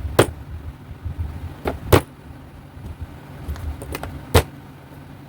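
A fist knocking on a flat-pack cabinet panel to push its slots into place: a handful of sharp knocks, three of them loud, with low rumbling of the panel being handled between them.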